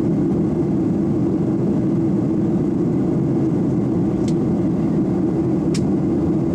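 Steady low drone of an airliner in flight, heard inside the cabin: engine and airflow noise. Two faint clicks come about four and six seconds in.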